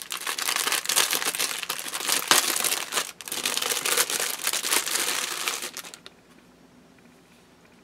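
Clear plastic bag crinkling as it is pulled open and a braid of wool roving is drawn out, a dense run of quick crackles that stops about six seconds in.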